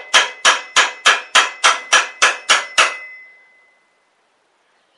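Hammer blows on a cold chisel driving the lock nut on a lawn mower engine's threaded muffler pipe to break it loose: sharp metallic strikes about three a second. They stop about three seconds in, the last one ringing briefly as it fades.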